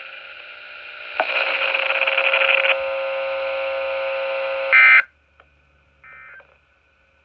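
Weather radio receiver hiss and a steady buzz, then a short, loud EAS (SAME) end-of-message data burst, a two-tone digital screech, about five seconds in. The signal drops out, and a fainter repeat of the burst follows a second later.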